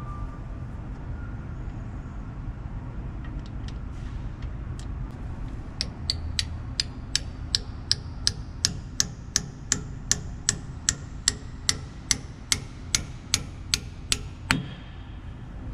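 Small hammer tapping a pin into the gear on a Hale fire pump's bearing assembly: a few light taps, then a steady run of sharp metallic taps about three a second for nine seconds or so, the last one the hardest.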